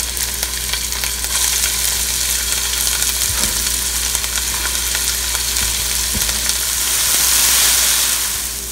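Chopped onion and ginger sizzling steadily in hot mustard oil in a nonstick frying pan, stirred with a spatula, with a couple of light knocks. The sizzle swells briefly near the end.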